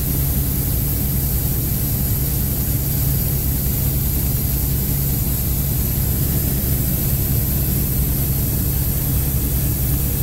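Helicopter in flight heard from inside the cabin: a steady low rotor and engine drone with a thin, high turbine whine above it.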